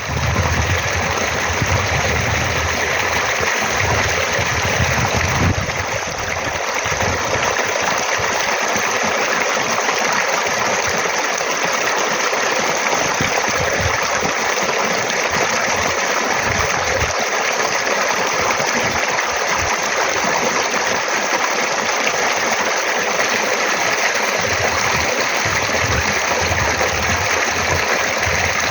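Flowing stream water rushing steadily, a continuous even hiss with an irregular low rumble underneath.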